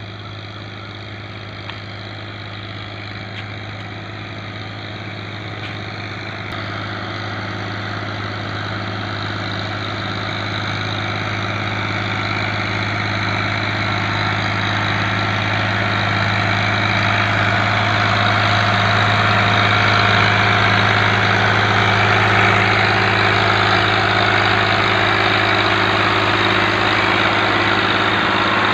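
Tractor diesel engine running steadily, with the rushing hiss of its air-blast sprayer blowing mist over the trees. The sound grows steadily louder as the tractor approaches over the first twenty seconds, then stays loud up close.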